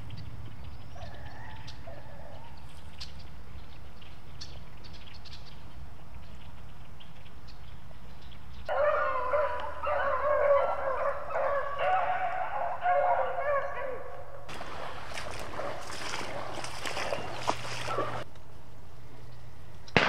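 A pack of beagles baying on a rabbit's trail, starting about nine seconds in and lasting some five seconds. Then footsteps crunch through dry leaves and brush for a few seconds and stop abruptly.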